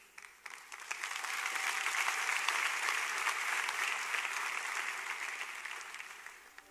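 Audience applauding, the clapping building up over the first second, holding, then dying away near the end.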